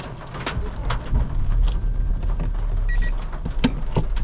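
Scattered sharp knocks of storm precipitation striking the car's roof and glass, which the driver isn't sure is hail, heard inside the car over a steady low rumble from the moving car.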